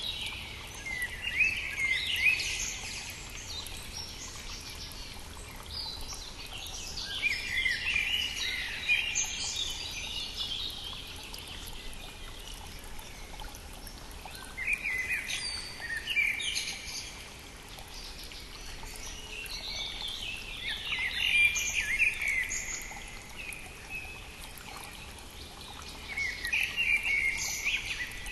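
Songbirds singing in short bursts of chirping phrases, about five in all, spaced several seconds apart, over the steady rush of a brook.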